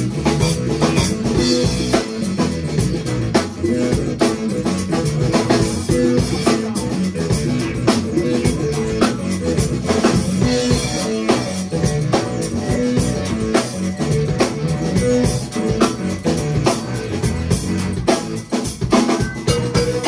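Live band playing: a steady drum-kit beat with electric guitar, keyboards and a bass line moving in low notes underneath.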